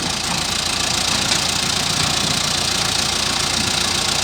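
A heavy-equipment diesel engine running steadily.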